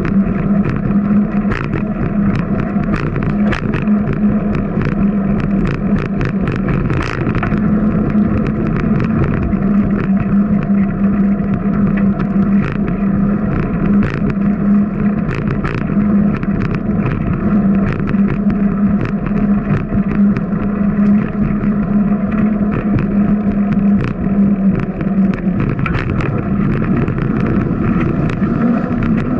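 Wind rushing over the microphone of a bicycle-mounted camera while riding on a concrete sidewalk at about 10 mph, a steady low drone with many sharp clicks and rattles from the bike and mount over the rough surface.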